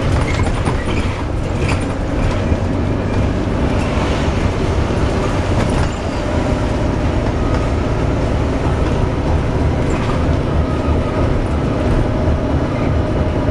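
Volvo B9TL double-decker bus under way, heard from on board: a steady low rumble with a constant drone over it, the noise of a bad axle.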